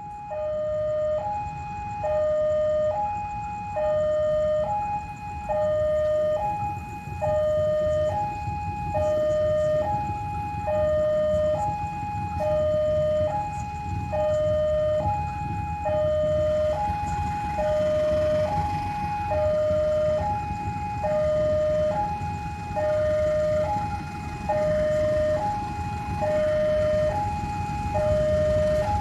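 Railway level-crossing warning alarm sounding, a two-tone electronic signal swapping between a low and a high note about once a second, as the crossing closes for an approaching train. A low rumble sits underneath and grows heavier in the second half.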